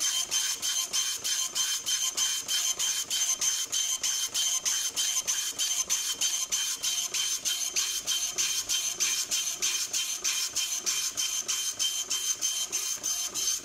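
Epson LQ-310 24-pin dot-matrix printer printing its built-in self-test page. The print head chatters line after line in an even rhythm of about four bursts a second, over a steady high whine.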